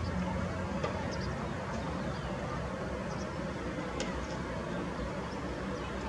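Steady low hum of distant city traffic, with short high bird chirps now and then.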